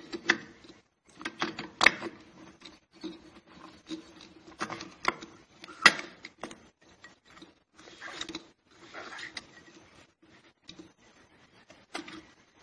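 Steel clutch parts clicking, clinking and rattling as a hub is turned by hand and worked down onto the splines of the clutch pack inside an automatic transmission case. There are sharp clinks about two and six seconds in, with lighter irregular rattling between them.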